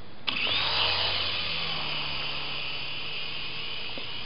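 Small electric remote-control coaxial toy helicopter spinning up its motors and rotors about a third of a second in, rising in pitch and then running with a steady high whine. Its battery is getting low, so it struggles to climb straight up.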